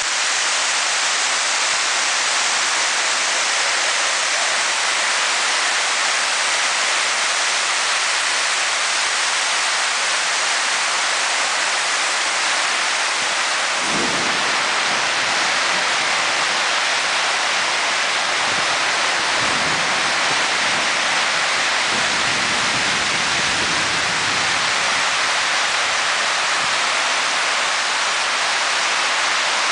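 Heavy rain pouring steadily onto pavement, a dense, even hiss that does not let up.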